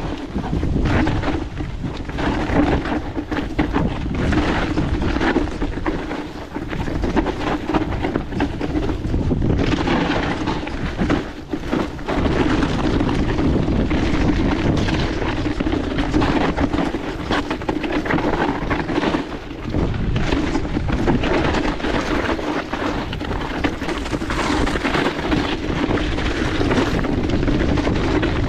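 Electric mountain bike's mid-drive motor whining steadily under full boost assist on a steep climb, with wind buffeting the action camera's microphone.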